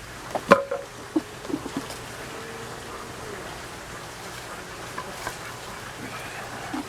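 Short animal calls: a sharp one about half a second in, then a few softer ones between one and two seconds, over a faint steady background.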